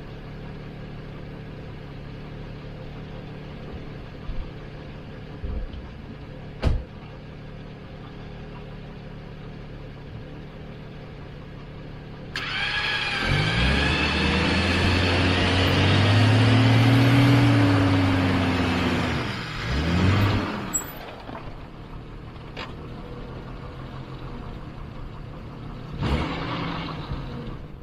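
Jeep Cherokee XJ engine idling steadily, with one sharp knock. About twelve seconds in a whine starts up and the engine revs up and down as the Jeep winches itself out of a mud hole against a buried deadman anchor; the whine cuts off about eight seconds later, and there is a shorter burst of revs near the end.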